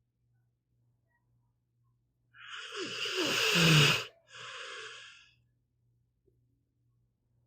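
Pit bull snoring: about two seconds in, one loud snoring breath with a falling rumble, then after a brief gap a shorter, softer breath.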